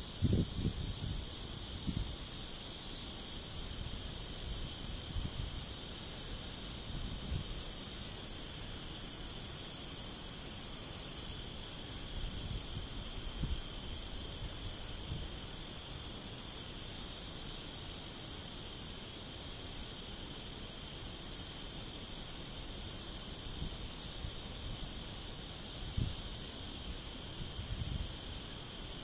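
Steady chorus of field insects, a continuous high trilling that does not change, over a low, uneven rumble.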